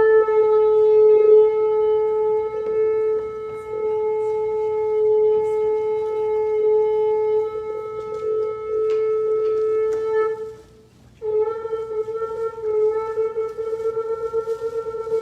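Shofar blown in one long steady note of about ten seconds, which breaks off briefly, then a second long blast with a wavering, pulsing tone.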